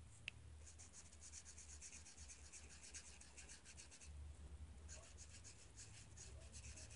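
Faint, rapid strokes of a TouchFive twin-tip alcohol marker's fine tip rubbing across paper while coloring in, with a brief pause about four seconds in.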